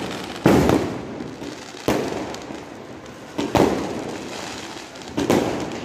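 Multi-shot aerial firework cake firing shells that burst overhead: four sharp bangs about a second and a half apart, each trailing off in an echoing rumble.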